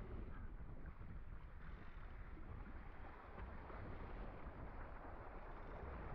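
Wind buffeting the microphone over the steady rush of water along the hull of a 2000-class sailing dinghy under way.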